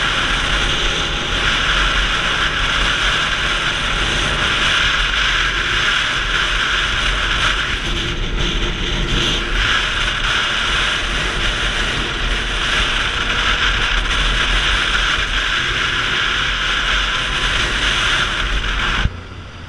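ATV riding at road speed: steady engine rumble under loud wind rush on the microphone. It drops off suddenly near the end.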